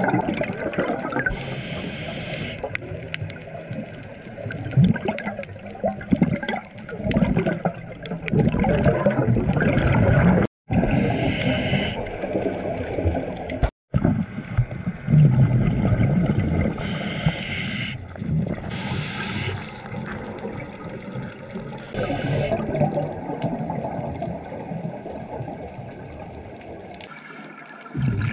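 Scuba regulator breathing recorded underwater: rumbling, gurgling bursts of exhaled bubbles alternate with short hissing inhalations every few seconds. The sound cuts out briefly twice in the first half.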